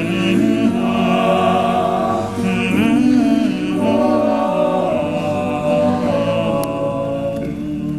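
All-male a cappella group singing sustained close-harmony chords without instruments, the chord moving a couple of times before settling on a long held final chord at the close of the song.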